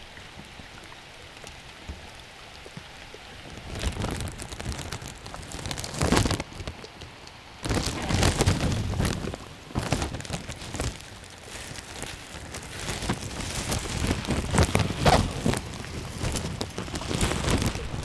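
Rain falling and pattering, a steady hiss for the first few seconds, then from about four seconds in irregular louder stretches full of close sharp drop ticks and knocks.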